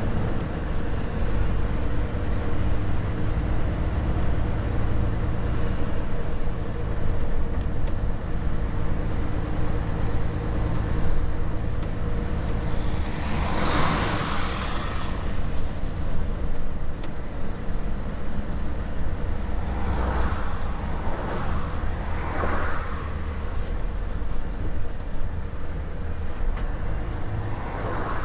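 Volvo FH 460 truck under way, its 13-litre inline-six diesel and the road making a steady low drone. About halfway through comes a loud whoosh lasting a second or so, and a few fainter whooshes follow a little later.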